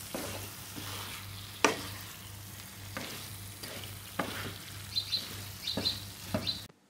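Mutton liver sizzling in a nonstick frying pan as a wooden spatula stirs and scrapes it, being cooked down dry; the spatula knocks against the pan several times. The sound cuts off suddenly near the end.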